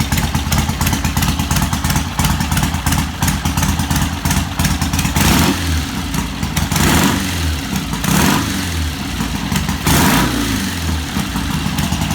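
Vintage British motorcycle engine idling with an even firing beat, then revved four times, each rev rising and falling back to idle. The revs rise smoothly, a sign the engine is running well.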